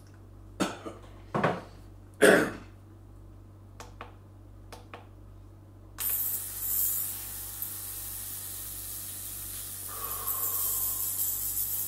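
A few short, loud bursts of noise in the first three seconds. About six seconds in, a small ultrasonic cleaner is switched on and runs with a steady high-pitched hiss from its tank of water and acetone.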